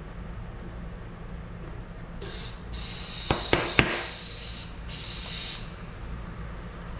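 Compressed air hissing into a tubeless bicycle tire in a few bursts for about three seconds, starting about two seconds in, to seat the tire on the rim. In the middle come three sharp pops in quick succession, the last the loudest: the tire bead snapping up onto the rim.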